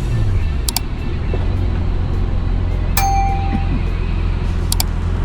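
Steady low hum of a car driving, with a couple of sharp clicks and a short ringing chime about three seconds in.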